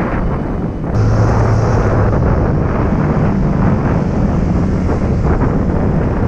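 Wind buffeting the microphone over a motorcycle engine while riding at speed. There is an abrupt change in the sound about a second in.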